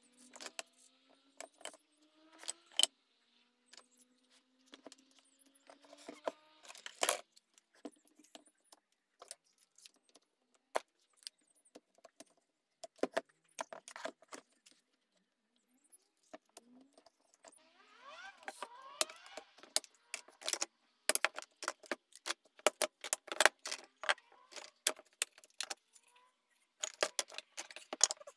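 Irwin quick-release bar clamps being worked and handled on a glue-up: irregular metallic clicks and rattles from the clamp triggers and steel bars, sparse at first and coming thick and fast in the last ten seconds, with a few short rising squeaks of parts sliding.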